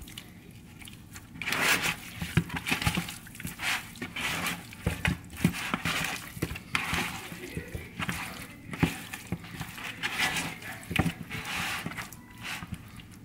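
Bare hands tossing and squeezing raw seasoned chicken pieces in a plastic bowl: irregular wet squelches and slaps with small knocks against the bowl, starting about a second and a half in.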